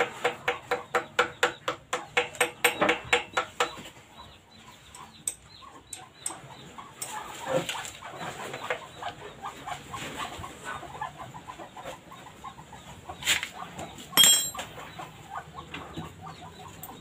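A chicken clucking in a quick run of short calls, about four or five a second, for the first four seconds, then fainter scattered clucks. Late on, a single sharp clink with a brief ring.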